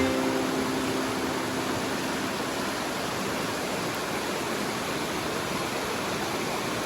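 Steady, even rushing noise with no rhythm or pitch, as the guitar music fades out in the first second.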